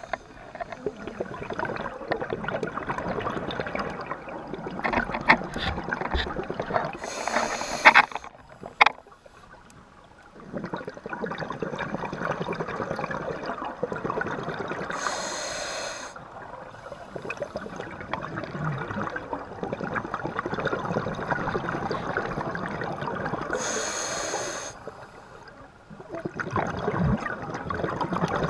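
Scuba diver breathing through a regulator underwater: long stretches of exhaled bubbles broken by three short hissing breaths about eight seconds apart.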